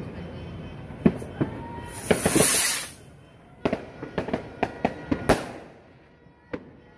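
Fireworks and firecrackers going off: scattered sharp bangs, a loud hissing burst about two seconds in, then a quick run of bangs and one last bang near the end.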